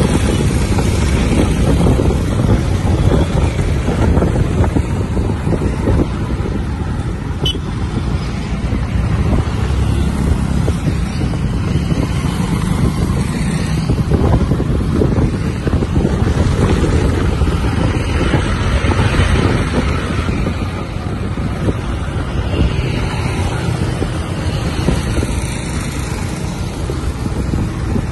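Steady low rumble of wind buffeting the microphone, mixed with engine and road noise, from a vehicle travelling along a road at speed.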